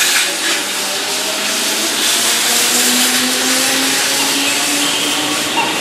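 Keihan 2200-series electric commuter train running along the platform: a steady rush of wheels and running gear, with a faint hum that rises slowly in pitch.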